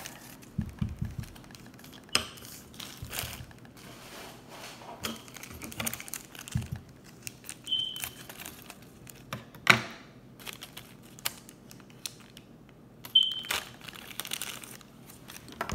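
Crinkling and rustling of plastic foil toy wrapper bags being handled, with scattered clicks and light taps of small plastic pieces on a wooden table, one sharper click near the middle.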